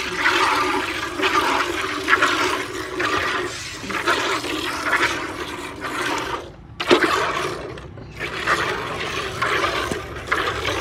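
Milk squirting from a cow's teats into a steel pail already part full of milk, hand-milking in repeated strokes a little more than one a second, with a short break and a click about seven seconds in.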